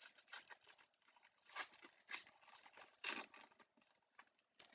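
Foil trading-card pack wrapper crinkling and tearing in the hands as the pack is opened: a run of faint, irregular crackles with a few louder crinkles.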